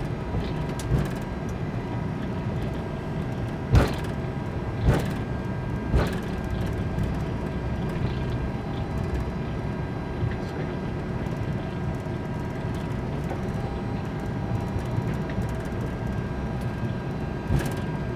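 Airbus A321 cockpit while taxiing: a steady low rumble with several faint steady tones over it, broken by a few short thumps, three about a second apart starting about four seconds in and one more near the end.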